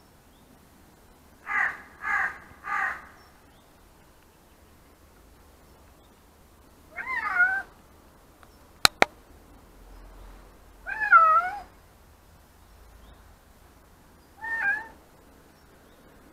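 Domestic cat meowing: three short calls in quick succession about two seconds in, then three longer meows with a wavering pitch spread over the rest of the stretch. Two sharp clicks close together come between the meows.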